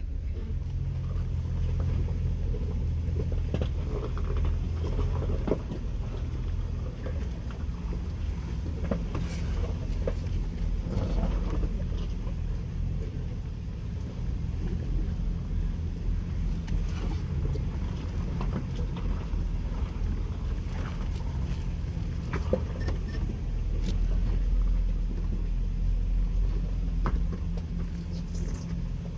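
Jeep Wrangler engine running at low speed with a steady low rumble as it crawls along a rocky off-road trail, with occasional faint knocks.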